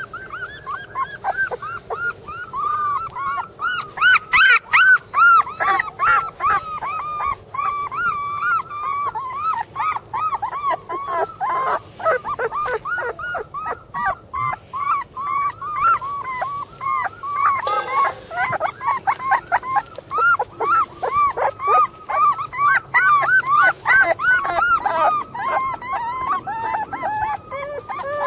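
Newborn Border Collie puppies whimpering and squeaking, a near-continuous string of short, high, rising-and-falling cries, several a second.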